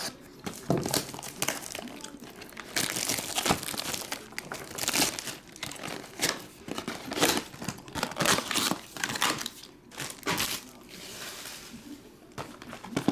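Plastic shrink wrap on a sealed trading-card box being slit with a new razor blade and pulled away, a run of irregular crackly rustles and tears.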